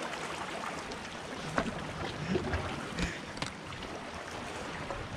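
Small sea waves washing and lapping against shoreline rocks, a steady wash of water, with a few soft knocks in the middle.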